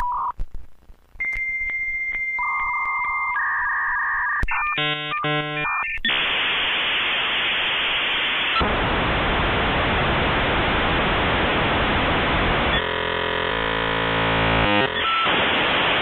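Dial-up modem handshake over a phone line. A few steady beeping tones come first, then a short warbling exchange, then several seconds of harsh hiss as the two modems negotiate the connection, with a buzzing stretch near the end.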